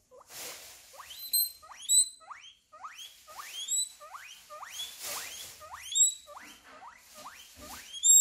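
Guinea pig wheeking: a rapid series of short, high, rising squeal-whistles, more than one a second, some much louder than others. Wheeking is the call guinea pigs make when they want attention or food.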